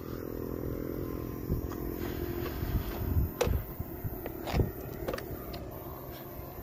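Diesel helper locomotives running down into the tunnel: a steady low engine rumble whose engine note dies away about halfway in, with a few sharp knocks over it.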